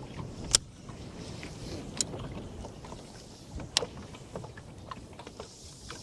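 Water sloshing against the hull of a small boat, with three sharp knocks about a second and a half apart, the first the loudest.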